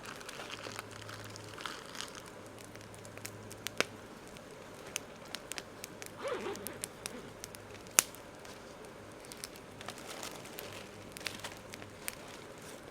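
Campfire crackling, with irregular sharp pops scattered throughout; the loudest pop comes about eight seconds in.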